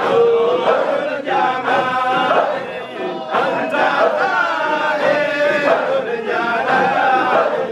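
A crowd of men chanting a devotional hadhara song together in unison, loud and close.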